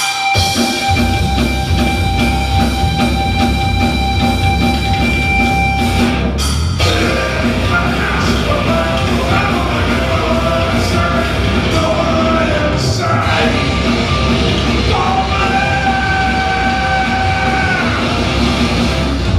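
Rock band playing loud and live: two distorted electric guitars, bass and drums, with shouted vocals. Held guitar tones ring through the first few seconds before the full band carries on.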